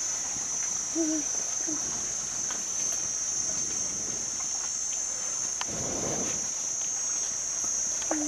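Insects droning in one steady, high-pitched, continuous tone, with a few short low calls about a second in and again near the end.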